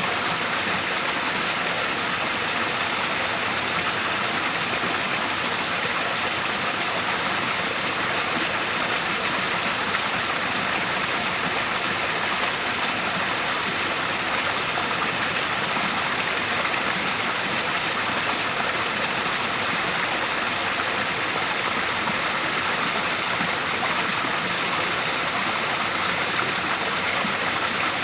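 Waterfall pouring into a river, a steady, even rush of falling water with no change.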